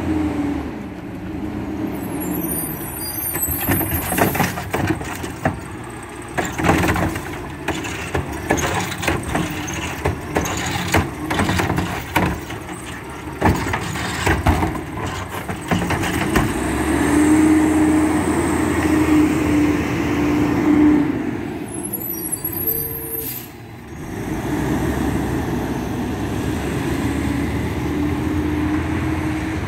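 Mack LEU garbage truck with a Heil Curotto Can arm working a cart pickup. Its air brakes hiss as it stops. Clanks and bangs follow as the arm grabs, lifts and dumps the cart, all over the running diesel engine. A second air-brake hiss comes before it pulls away.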